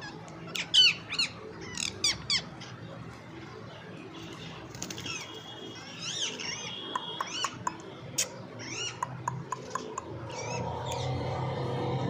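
Indian ringneck parakeet squawking: a quick run of sharp, arching high calls in the first couple of seconds, then scattered shorter calls and clicks.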